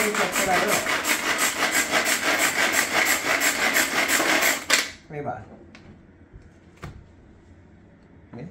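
Pull-cord manual food chopper being pulled hard and fast, its blades whirring through onion pieces in a fast pulsing rasp. It stops abruptly a little under five seconds in, followed by a few light clicks.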